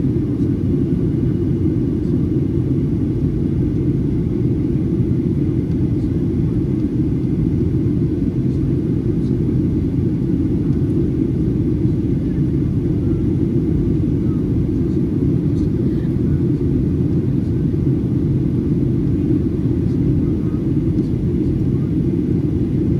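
Steady low cabin rumble inside a Boeing 737-800 in flight, the engine and airflow noise of its CFM56-7B engines heard from a window seat by the wing.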